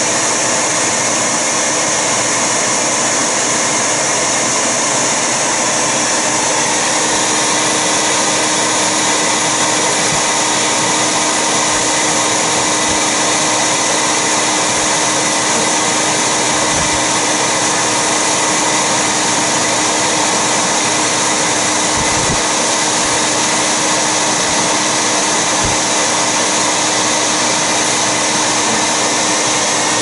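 Bee vacuum running steadily, its motor giving a constant hum and whine as the hose sucks up honey bees.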